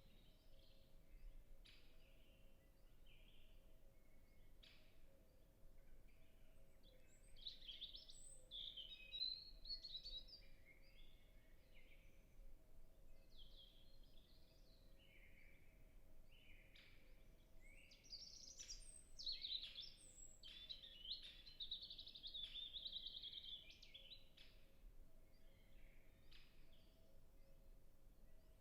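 European robin singing, faint and distant: a string of short, varied high warbling phrases with pauses between them, swelling into two louder runs of song, one about a quarter of the way in and one past halfway. A faint steady low hum sits underneath.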